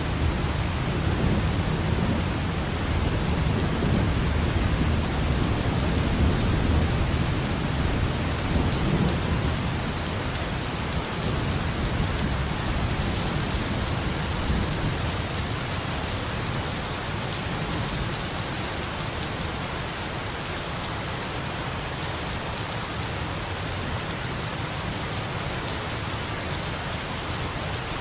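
Heavy rain falling steadily, with a low rolling rumble of thunder through the first half that fades out about halfway through.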